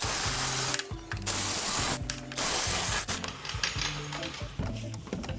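Pneumatic tool run in three short hissing bursts, each under a second, loosening engine mount bracket bolts, followed by quieter clicking of the tool and bolts.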